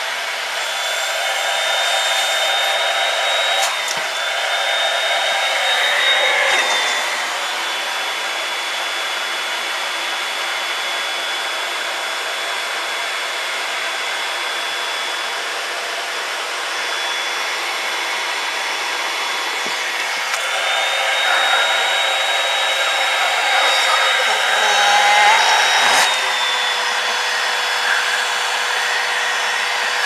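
Vacuum cleaner running, a steady rush of air with a high whine over it. The whine steps up in pitch for several seconds twice, and again at the very end, as the end of the hose is covered and the motor speeds up.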